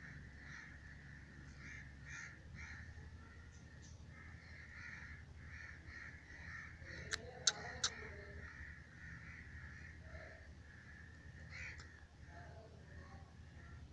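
Faint bird calls in the background, with three sharp clicks in quick succession about halfway through.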